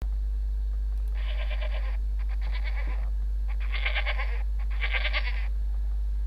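Four short bleating animal calls, each under a second, spaced about a second apart, over a steady low hum.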